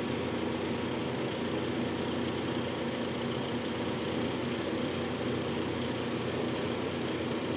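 A vehicle engine idling steadily, with an even low hum that does not change.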